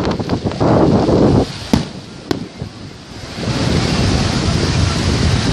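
Fireworks show: two sharp bangs about half a second apart near the middle, over wind buffeting the microphone.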